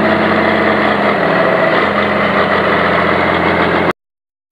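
International Harvester 3688 Pro Stock pulling tractor's turbocharged diesel engine idling steadily after its pull, its pitch easing down slightly about a second in. The sound stops abruptly near the end.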